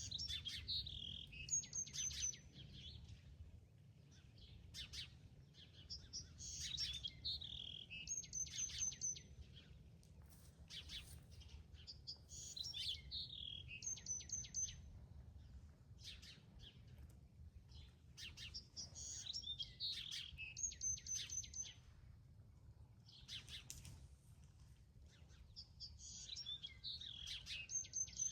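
A songbird singing the same phrase over and over, about every six seconds: a quick falling run of notes followed by a short string of high, clipped notes, with smaller chirps in between. A faint, steady low rumble runs underneath.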